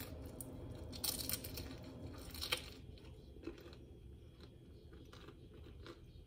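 Biting into a crispy deep-fried egg roll: loud crunches of the fried wrapper about a second in and again a little later, then quieter crunching as it is chewed.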